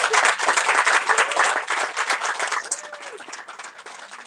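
Audience applauding: dense clapping that thins out to scattered claps after about two and a half seconds.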